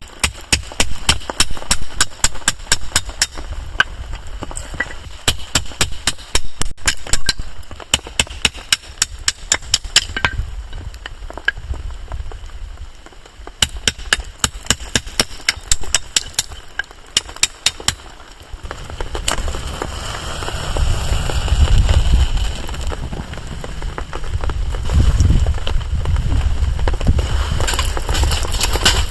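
Small wood bonfire crackling: rapid, irregular sharp pops and snaps, easing off briefly about halfway through, then joined by a low rumble in the last third.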